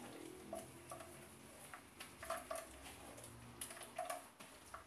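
A spoon scraping and tapping faintly and irregularly against a plastic sieve as blended corn pulp is pressed through it.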